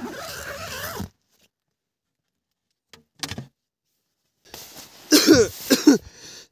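A man coughing a few times in short hacking bursts, the loudest two near the end, from a cough that has not cleared after days of illness. A brief rustle of movement comes before it.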